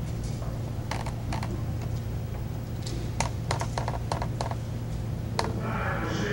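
A scattering of short, sharp clicks and taps, with a quick run of them in the middle, over a steady low hum.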